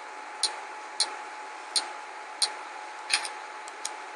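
A run of light, sharp clicks or taps, a little more than one a second and not quite evenly spaced, with two close together near the end, over a faint steady high hum and hiss.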